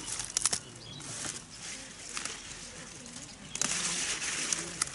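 Leafy garden plants rustling as radishes and greens are handled and pulled up by hand, with a few crisp clicks and a denser burst of rustling near the end.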